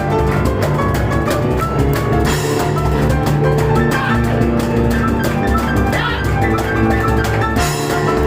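Piano and cajon duo playing a fast, driving instrumental live: dense piano chords and runs over many sharp, rhythmic drum strikes.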